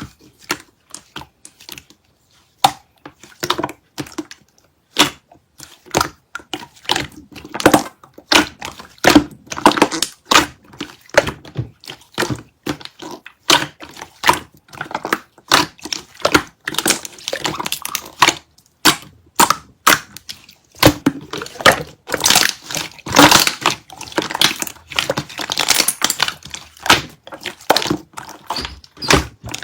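Slime being squished and pressed by hand, making rapid sticky clicks and small air-bubble pops, which grow busier and louder in the second half.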